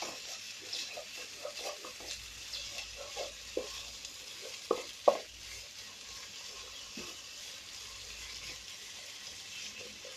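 Spice pastes of onion, garlic, ginger and cumin sizzling in hot oil while a spoon stirs and scrapes them around the pan, the first stage of frying the curry base (kosha). The scraping comes in quick strokes, loudest about five seconds in, then thins out, leaving a steady sizzle.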